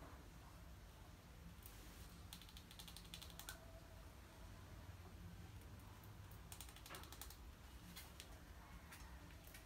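Faint bursts of rapid clicking from a rat gnawing at a pile of grain bait, twice, with a few single clicks between; otherwise near silence over a low hum.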